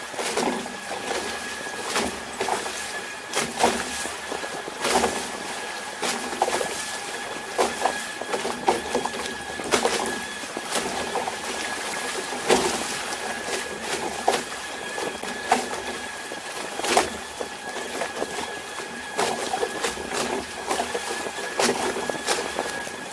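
Wind and water rushing past a small sailing craft planing at high speed, about 37.8 mph, with frequent sharp slaps as the hull strikes chop. A thin steady high tone runs underneath.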